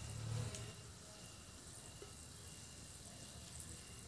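Bay leaves and cloves frying in hot oil in a kadai: a faint, steady sizzle with scattered small crackles. A low rumble is heard in the first half-second or so.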